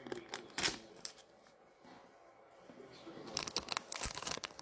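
Trading cards and pack wrappers being handled: a sharp tap about half a second in, a couple of lighter clicks, then a run of crinkling and rustling from about three seconds in.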